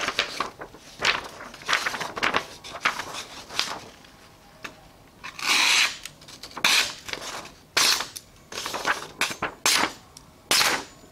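A Shun Classic 8-inch chef's knife slicing through a hand-held sheet of paper: a run of short hissing cuts and paper rustles, the longest a little past halfway. The blade goes through cleanly, the sign of a sharp edge.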